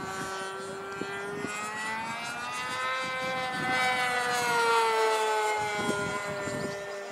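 Engine and propeller of an RC model airplane buzzing in flight as it passes overhead, the pitch rising and the sound getting louder about halfway through, then falling away again as it goes by.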